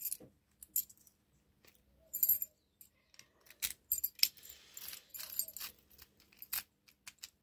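Small metal parts of a euro profile lock cylinder and lock picks being handled: scattered light clicks, with a couple of brief metallic jingles about two seconds in and again around the fifth second.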